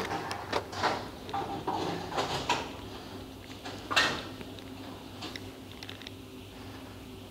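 Bowling alley clatter: a run of knocks and rattles, then one sharp crash about four seconds in, typical of a ball striking pins. A steady machinery hum runs underneath.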